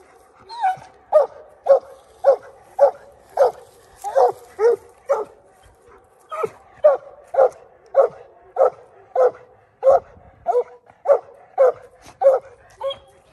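Young coonhound barking treed at a raccoon on the trunk: a steady run of short chop barks, about two a second, with a brief pause near the middle.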